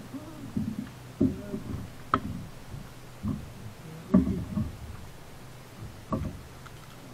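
A small fish being handled and unhooked in a kayak: irregular knocks and thumps, the loudest about a second in, at two seconds and at four seconds, with short low pitched sounds in between.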